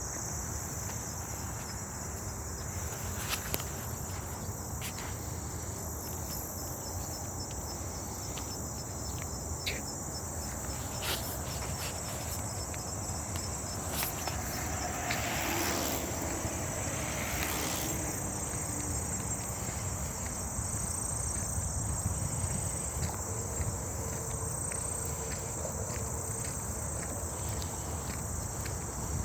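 Steady, continuous high-pitched chorus of crickets trilling, with scattered faint clicks and a low rumble underneath.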